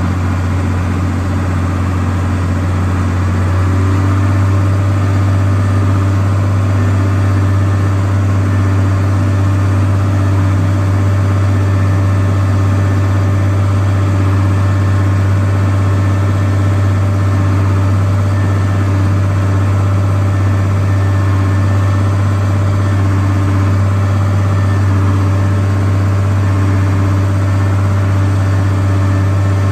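1986 Ford TW-5 tractor's turbocharged six-cylinder diesel engine running steadily under way, heard from inside the cab, a little louder from about four seconds in.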